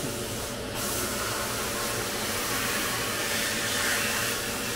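Dry media blast cabinet's air gun hissing steadily as compressed air drives abrasive against an aluminium motorcycle cylinder head, stripping corrosion. The high hiss briefly drops out about half a second in.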